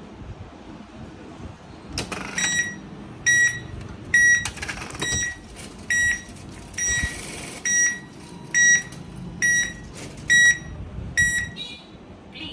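ATM beeping repeatedly as the cash withdrawal completes: about eleven short, identical high beeps, roughly one a second, with a brief burst of noise midway.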